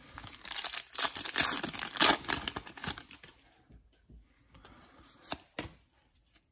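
The plastic foil wrapper of a trading-card pack being torn open and crinkled for about three seconds, followed by softer rustling as the stack of cards is handled, with two sharp taps near the end.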